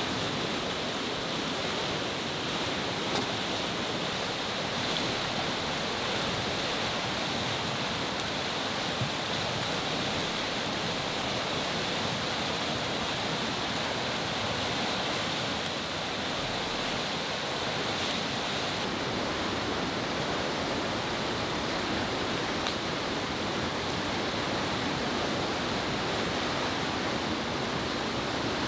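Steady rushing of a fast-flowing river swollen and muddy after a storm.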